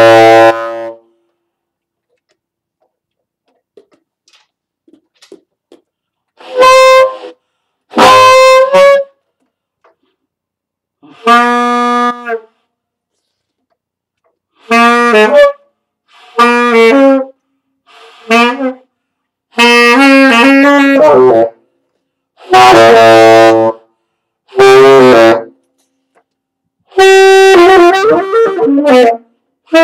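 Mendini tenor saxophone played loudly in separate notes and short phrases of one to two seconds with silent pauses between, some notes wavering in pitch. It is a first try on a new horn that has not yet been tuned.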